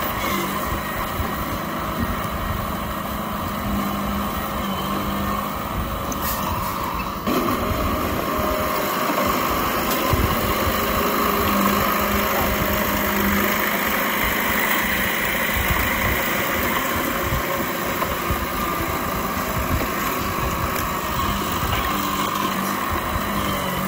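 Diesel engine of an old Komatsu D31P bulldozer running steadily as the dozer pushes soil, stepping up in loudness about seven seconds in.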